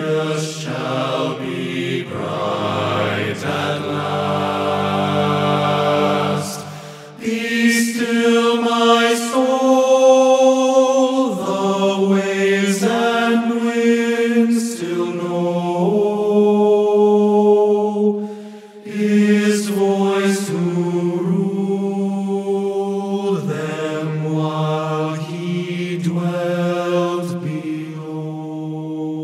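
Tenor and bass choir singing a cappella in close harmony: sustained chords of a hymn arrangement that change every second or two, with two short breaks for breath, about 7 and 18 seconds in.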